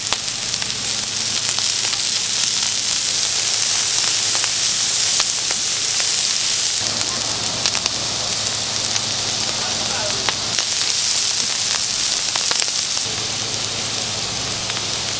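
Chicken and chicken-heart skewers sizzling on a hot flat griddle: a steady hiss of frying, with a few light clicks.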